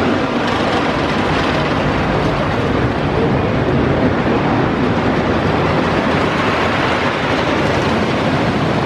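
Lightning Racer's train of cars running over the wooden coaster track, a steady loud rattle and rumble of wheels on the wood structure.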